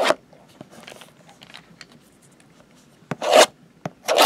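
Hands rubbing and scraping a shrink-wrapped 2020 Topps Gypsy Queen cardboard retail box, in short scratchy strokes with small ticks between; the loudest stroke comes about three seconds in, with another just before the end.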